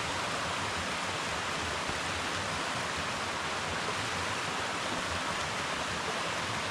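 Steady rush of a rain-swollen creek cascading over rocks.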